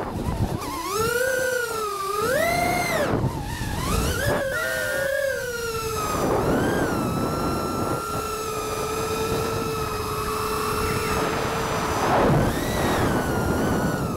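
FPV quadcopter's brushless motors and propellers whining, the pitch swooping up and down with the throttle during hard manoeuvres. About halfway through it settles into a steady hum, then surges briefly near the end.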